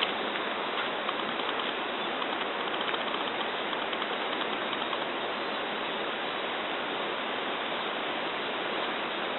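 Steady rushing noise of moving water, even throughout.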